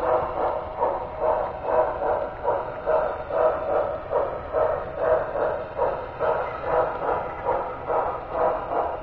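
HO-scale model train running, its running gear making an even pulsing about two beats a second.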